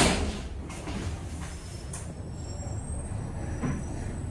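Schindler 5500 lift car travelling up between floors: a knock right at the start as the rear doors finish closing, then a steady low hum of the moving car with a faint high whine.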